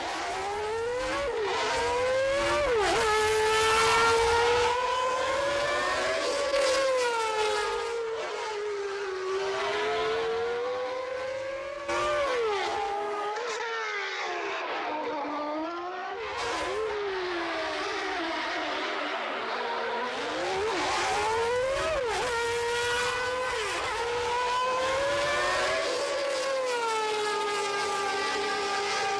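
Honda Formula 1 engine sound, digitally reconstructed from the telemetry of a record lap. The engine note climbs and drops sharply at each gear change, eases down through slower stretches and climbs again, like a car running a circuit lap.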